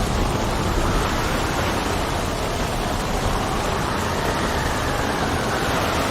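Steady rain and wind. Partway through, a gust's whistle rises in pitch, then eases off.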